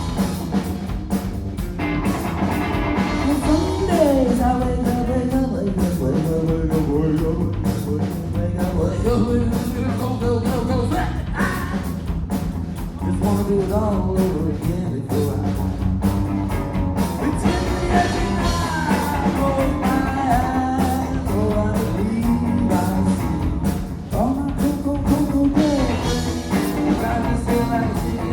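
Live rock-and-roll band playing a bluesy jam: electric guitar, bass and a drum kit keeping a steady beat, with a singer.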